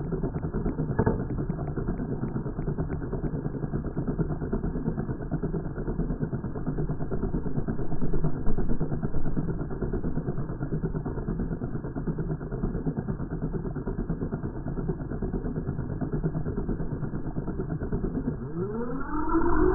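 Small electric motor and rotor of a Spinner Missile X model rocket whirring on its launch pad, beginning to rise in pitch near the end as it spins up for lift-off.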